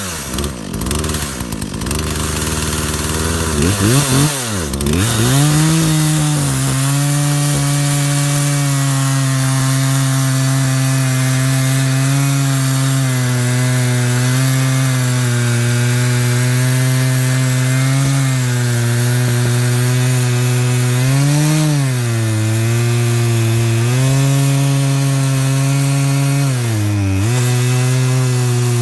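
Poulan PL3314 33cc two-stroke chainsaw cutting through a large log. Its engine pitch rises and falls for the first few seconds as the chain bites in, then holds steady under load, dropping sharply twice as the saw bogs down and recovering each time.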